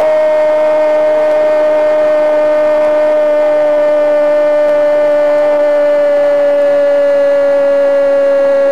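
A football commentator's long held "goool" shout for a goal: one loud, unbroken note held for nearly ten seconds, its pitch sagging slightly toward the end.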